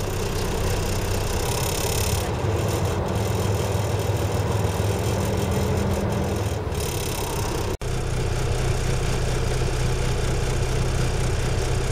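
A car engine idling, a steady low hum heard from inside the car's cabin. It drops out briefly about eight seconds in, and the hum then sits slightly higher.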